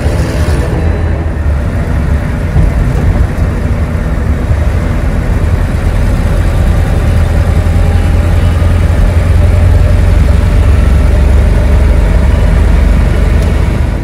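Inside the cab of an old Ford pickup with a 6.9 IDI V8 diesel, driving on a snow-covered highway: a steady low engine drone mixed with tyre and road noise, growing louder through the middle as the truck gathers speed.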